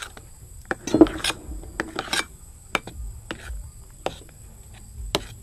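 Metal spoon clinking and scraping against a glass bowl as whipped egg whites are folded into egg-yolk batter. Irregular sharp taps, the loudest about a second in.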